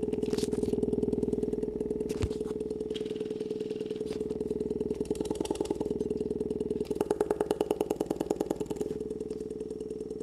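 Bare external woofer wired to a JBL Charge 3's amplifier, playing a steady, buzzy bass tone, with a few handling knocks in the first seconds and a fast pulsing beat near the end.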